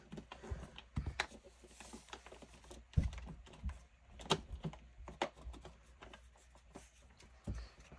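Paper banknotes being counted and shuffled on a desk: irregular soft rustles, flicks and light taps, with a few sharper ticks scattered throughout.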